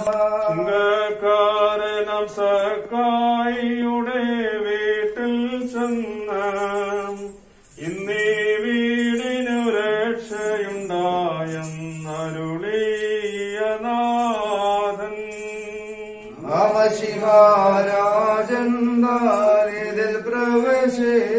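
Slow liturgical chanting of a Malayalam prayer: a voice sings long held notes in a plainchant-like melody, with a brief break about seven and a half seconds in.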